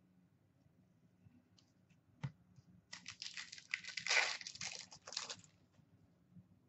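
An Upper Deck hockey card pack wrapper being torn open and crinkled by hand, heard as a cluster of crackly rips from about three to five and a half seconds in. A single sharp click comes about two seconds in.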